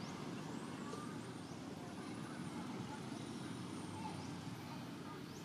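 Steady low outdoor background rumble, with a few faint high chirps now and then.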